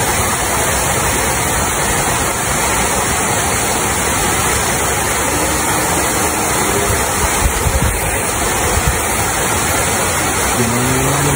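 Steady rush of water pouring over a concrete weir and falling into the pool below.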